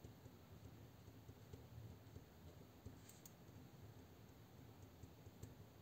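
Faint scratching and small ticks of a ballpoint pen writing on paper, barely above near silence.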